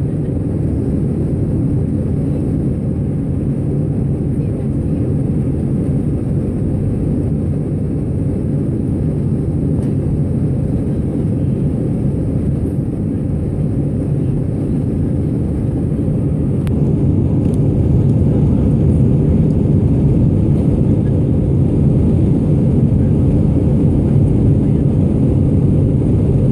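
Steady low cabin noise of an Airbus A319 in flight just after takeoff: jet engines and rushing airflow heard through the fuselage, getting a little louder about two-thirds of the way through.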